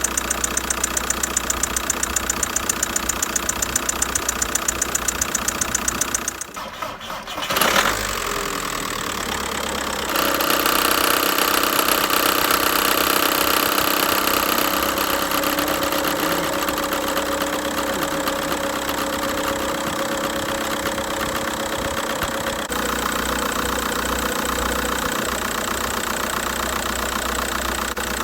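1.9 TDI diesel engine running; it dies away about six seconds in and is started again about two seconds later. From about ten seconds on, a steady whistle sounds over the running engine, and it changes near the end. The whistle is the fault being shown.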